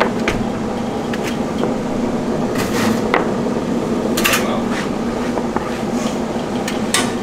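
Candy batch roller running with a steady hum as a rope of hard candy is drawn out of it. Scattered light clicks and taps from the candy and gloved hands being handled at the machine.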